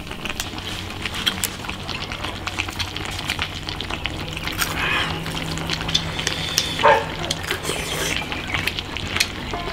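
People eating: many small clicks and taps of chopsticks against bowls and the metal pot, with a few slurps, over a faint steady low hum.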